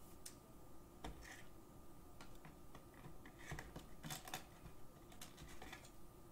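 Faint, irregular clicks and taps of hands working at a desk, thickest in a quick cluster about halfway through, over a faint steady hum.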